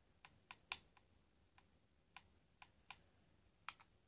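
Faint clicks of buttons being pressed on a remote control, about ten short clicks at uneven intervals while scrolling through a TV menu.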